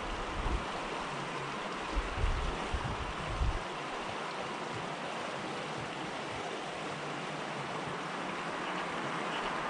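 Steady outdoor rushing noise, with two spells of low rumbling wind on the microphone in the first few seconds.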